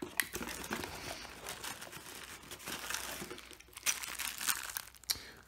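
Cardboard packaging and a clear plastic bag of metal mounting hardware crinkling as they are handled and lifted out of the box, in irregular crackles that grow louder about four seconds in.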